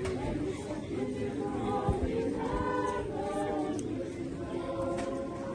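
A group of mourners singing a hymn together, many voices holding and moving between sung notes.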